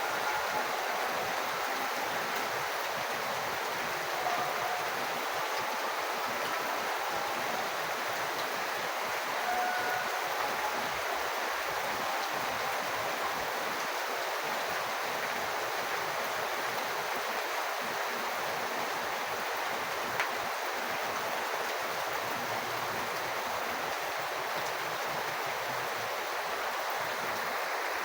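Rainwater falling in a steady, even rush of water noise, with one faint tick about twenty seconds in.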